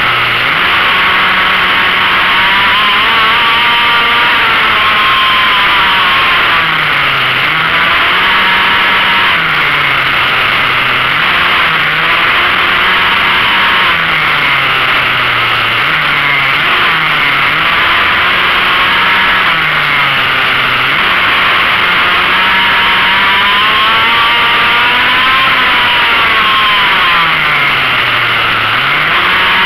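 Onboard sound of a racing pocket bike's small two-stroke engine, with its note dropping and climbing back every few seconds as the bike slows for corners and accelerates out. A thick rushing noise runs under it throughout.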